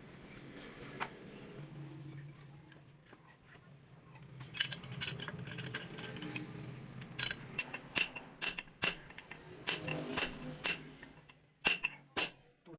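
Metal tools and engine parts clinking and tapping against each other during engine assembly, a run of sharp clinks through the second half over a steady low hum.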